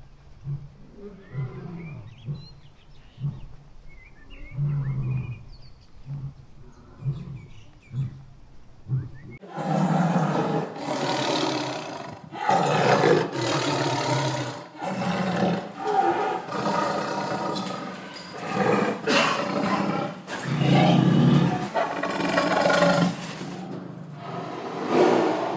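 A tiger growling in short low bursts, then from about nine seconds in roaring loudly over and over, each roar a second or two long.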